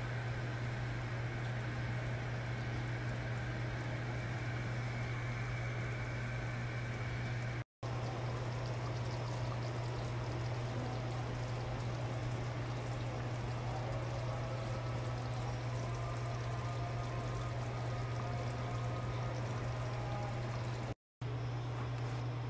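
A pot of vegetable stew simmering: a steady bubbling hiss over a constant low hum. The sound drops out for an instant twice.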